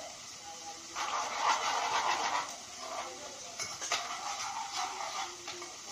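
Steel spoon stirring and scraping sliced shallots frying in coconut oil in a small steel pan, with the oil sizzling and the spoon clinking against the pan. Loudest between about one and two and a half seconds in.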